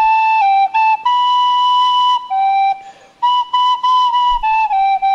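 Solo flute playing a melody of short and held notes, with one long high note about a second in and a brief pause near the middle.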